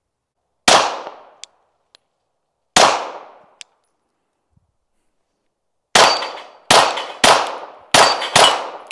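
Glock 17 9mm pistol firing: two single shots about two seconds apart, then after a pause a quicker string of five. Each shot is a sharp crack with a short echo tail.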